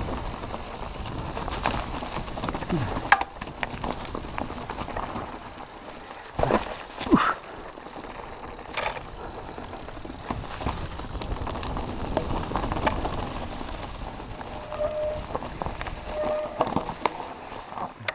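Mountain bike riding down a rough dirt and stone trail: tyres crunching over the ground, with frequent rattles and knocks from the bike over bumps. Two short squeaks come near the end.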